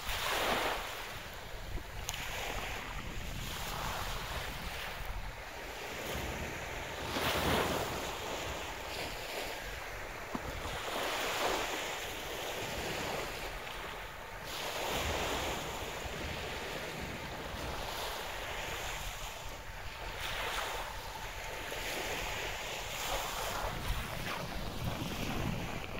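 Sea waves breaking and washing in every few seconds, with wind on the microphone.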